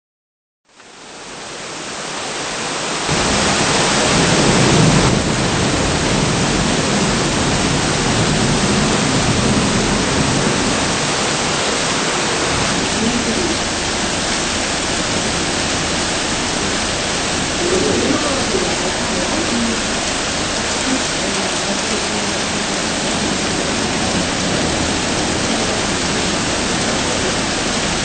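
Steady heavy rain, a dense even hiss that fades in over the first three seconds and then holds without a break.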